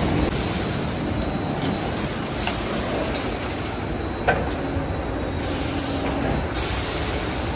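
Semi truck's diesel engine running steadily, with a single sharp click about four seconds in.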